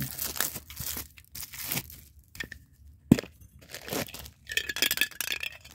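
Metal lid of a Funko Soda collectible can being worked open by hand: a series of short scrapes and crackles, with a sharp snap about three seconds in, the loudest sound, then a denser spell of crackling near the end.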